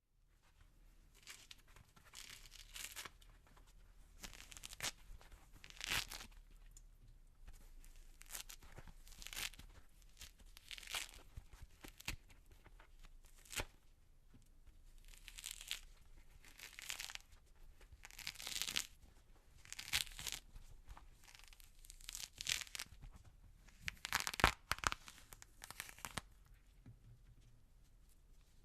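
Orange peel being torn off by hand: a series of short wet tearing and crackling rips, one every second or two.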